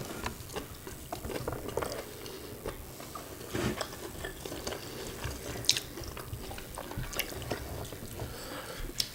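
Close-up eating sounds: wet chewing and mouth noises, and fingers working through rice on a tray, with scattered small clicks.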